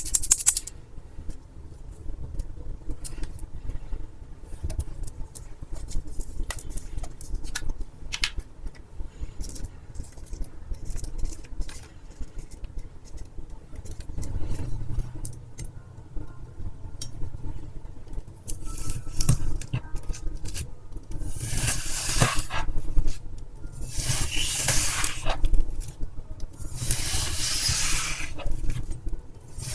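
Wet floral foam being cut: a run of small crackles and clicks, then, from about two-thirds in, longer gritty crunching strokes every two to three seconds.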